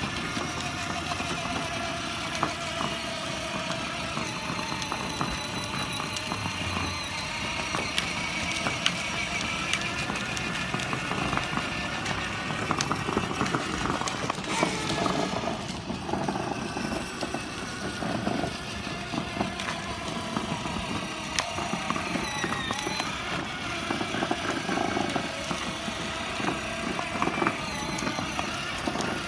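Battery-powered children's ride-on toy car driving: its electric drive motors whine steadily, with plastic wheels rolling over asphalt.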